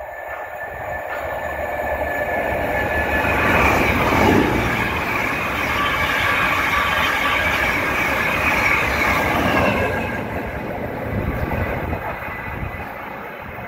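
Passenger train passing on the main line: it grows louder over the first few seconds, runs past for about six seconds, then fades away, with a tone that drops in pitch as it goes by.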